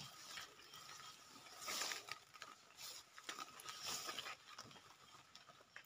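Faint rustling and crunching of footsteps through dry leaf litter and grass, in two short stretches.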